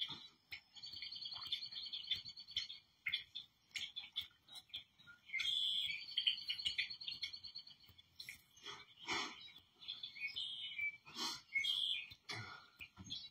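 Recorded birdsong from a bird video playing through a TV's speakers: high trills a couple of times, with scattered chirps and calls between.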